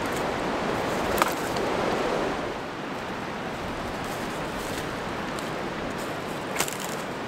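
Storm wind rushing steadily through the woodland trees. A sharp knock about a second in as a long branch is dropped onto the leaf litter, and another short knock near the end.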